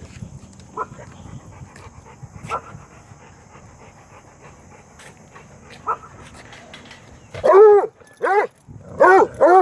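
Dog barking four times in quick succession near the end, each bark loud and pitched. A few faint short yelps come before.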